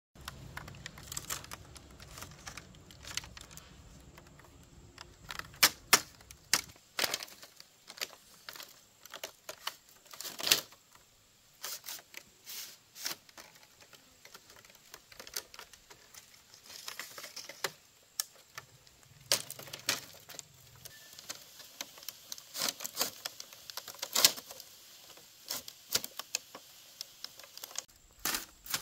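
Irregular sharp clicks and clatter of small hard objects being handled, with a few louder knocks about six, ten and twenty-four seconds in.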